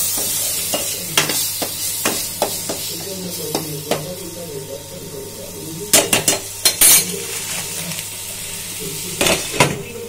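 Metal spatula scraping and clicking against a steel pan as onions and tomatoes are stirred and fried, over a steady sizzle. A quick run of louder clanks comes about six seconds in, and another near the end.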